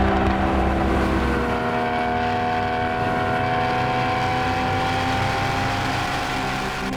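Porsche 981 Boxster GTS's flat-six engine pulling under load, its note rising slowly as revs climb. A deep low rumble drops away about a second and a half in.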